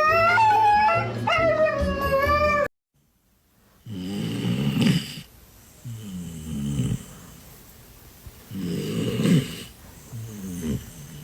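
A loud, wavering, high-pitched cry that ends abruptly. After a short gap, a dog snores in slow, rough breaths, each louder snore followed by a softer one.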